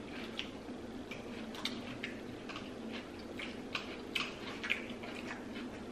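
Close-miked chewing and lip smacking: irregular wet mouth clicks a few times a second, over a steady low hum.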